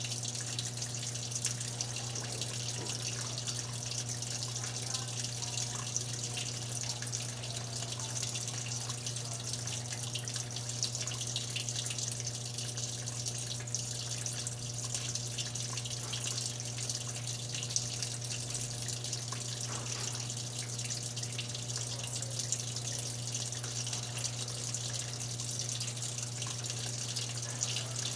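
Water running steadily into an Electrolux LTE12 washing machine, over a constant low hum.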